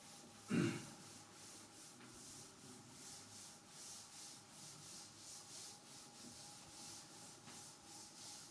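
Cloth duster wiping chalk off a chalkboard in rhythmic back-and-forth strokes. A brief vocal sound about half a second in.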